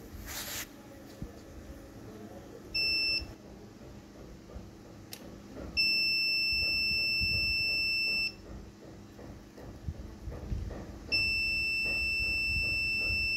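Continuity beeper of a SANDT-360 clamp multimeter sounding as its probes touch the capacitors on a TV panel board, testing for a short on the 12 V VCC line. It gives one steady high beep: briefly about three seconds in, for about two and a half seconds from about six seconds in, and again from about eleven seconds in.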